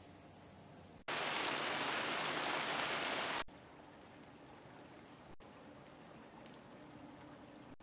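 Rain falling as a steady, even hiss that comes in abruptly about a second in and cuts off sharply about two and a half seconds later, leaving fainter background noise.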